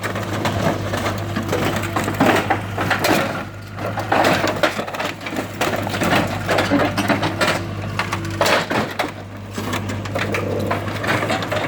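Excavator crushing the stripped body of a 1985 Pontiac Firebird: irregular crunching, creaking and cracking of the car's sheet metal, over the steady drone of the excavator's engine.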